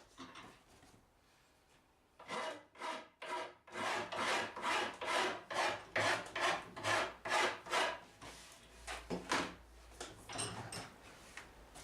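Wood being worked by hand with an abrasive tool, rasping or sanding in quick back-and-forth strokes about two a second. The strokes stop about eight seconds in, with two more single strokes after.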